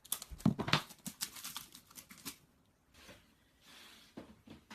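Faint rustling and scattered clicks, busiest for the first couple of seconds, then nearly quiet with a few more clicks near the end.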